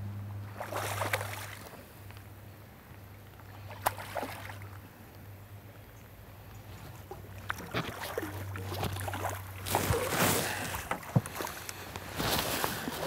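Hooked barbel splashing and swirling at the river surface as it is played in to the landing net: several separate splashes, the loudest about ten seconds in. A steady low hum runs under the first two seconds and again around eight to ten seconds in.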